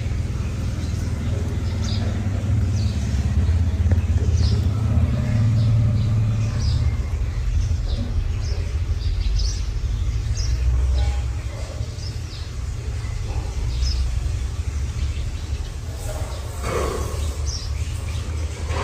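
Steady low rumble with short, high bird-like chirps scattered throughout, and a brief pitched call near the end.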